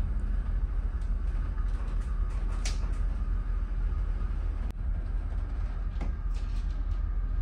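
Steady low rumble of the ferry Ogasawara Maru under way, heard on board, with a few faint clicks and creaks.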